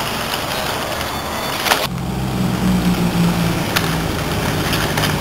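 Office chair's caster wheels rolling and rattling over brick paving, with street traffic noise behind. A sharp click comes just under two seconds in, and a low steady hum sets in after it.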